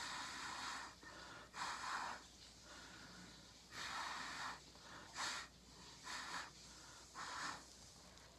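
Breath blown through a plastic drinking straw onto wet acrylic paint, pushing the pour outward: about six separate airy puffs, some long and some short, at uneven intervals.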